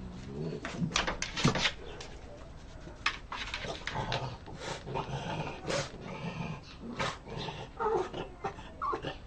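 A little dog giving a run of short, unusual-sounding barks, irregularly spaced.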